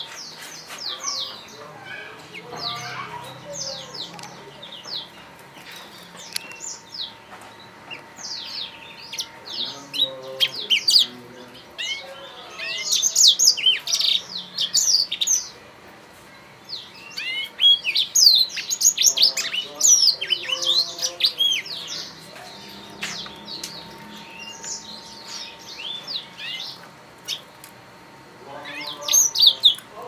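Young blackthroat (black-throated canary) singing: fast, high twittering chirps and trills, coming in dense bursts with quieter gaps between them, loudest around the middle and again near the end.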